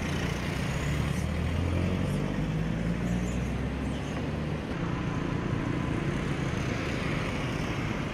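Outdoor street noise with a vehicle engine running steadily, its hum stopping about halfway through; general traffic noise continues after.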